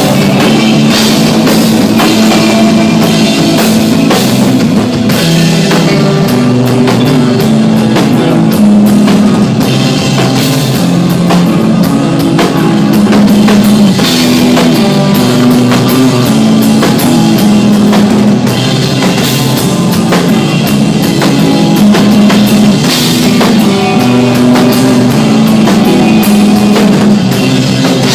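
Desert rock band playing live: drum kit with frequent cymbal hits, electric guitar, and a bass line stepping between notes, loud and continuous.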